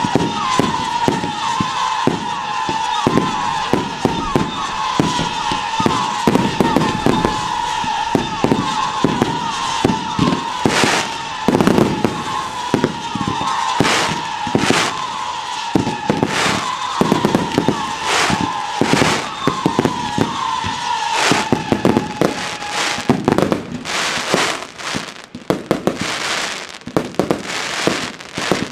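Daytime fireworks battery firing: a rapid string of shots and bangs, with a steady whistling tone running under them until about 23 seconds in. After that the shots come more sparsely, with short gaps between them.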